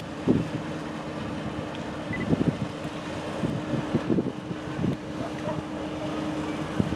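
Car ferry underway, its engines giving a steady low hum. Gusts of wind buffet the microphone with irregular low rumbles, and these are the loudest sounds.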